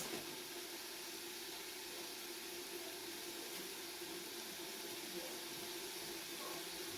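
A pot of tomatoes with ground groundnuts cooking on the stove, a steady, even hiss of simmering.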